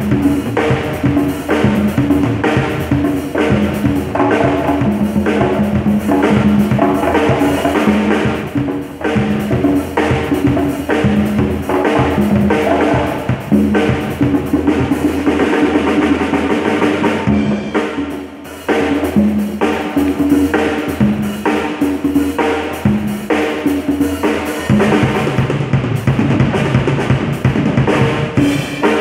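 A pair of congas and a PDP drum kit playing a steady dance rhythm together, dense with bass drum, snare and cymbal strokes under the conga tones. The playing briefly thins out a little past halfway, then picks up again.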